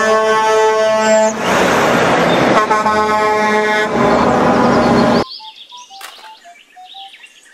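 A Mack semi-truck's horn sounds twice in long steady blasts, each over a second, over the truck's engine and road noise. The noise stops abruptly about five seconds in, leaving a faint background with small chirps.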